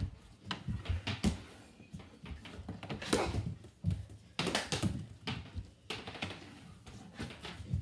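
Floor-hockey sticks clacking and scraping on a hardwood floor, with irregular sharp knocks that come in quick clusters about three seconds in and again around four and a half seconds.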